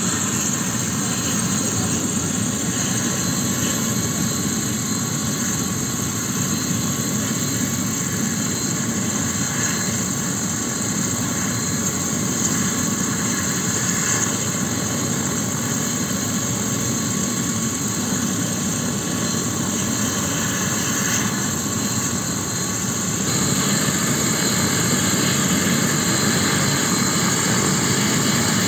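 Light turbine helicopter running on the ground with its rotors turning: a steady turbine whine over rotor noise. It grows louder about 23 seconds in.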